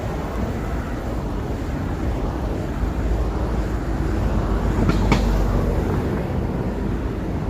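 Steady rumble of city street traffic, with one short, sharp knock about five seconds in.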